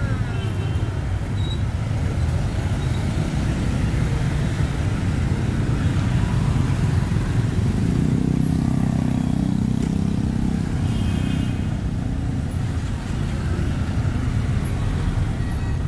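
City street traffic, mostly motorbikes and cars, making a steady low rumble. One vehicle passes louder about halfway through.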